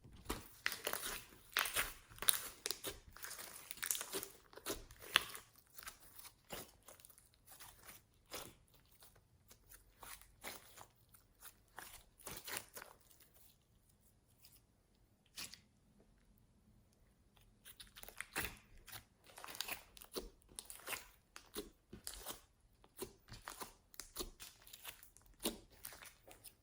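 Slime being squeezed and kneaded by hand, making a run of crackling pops and squelches. The popping is dense at first, thins out through the middle, then picks up again later.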